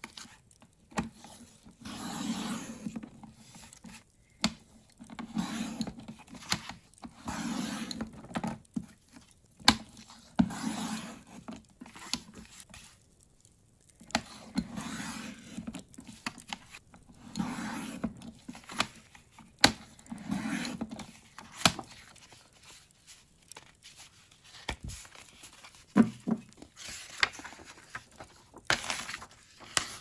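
Sliding paper trimmer's cutting head drawn again and again along its rail, each stroke a scraping swish about a second long as it cuts cardstock. Between the strokes come paper rustling and scattered sharp clicks.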